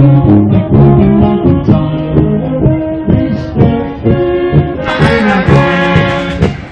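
Small brass band playing a tune live: tuba and baritone horns, with a steady rhythm of changing notes.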